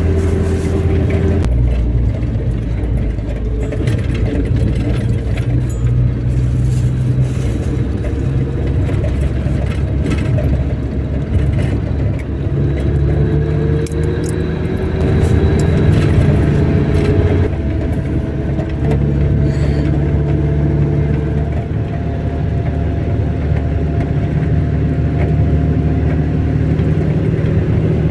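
A car running steadily, with a low engine hum and road noise; the engine pitch drifts slowly up and down.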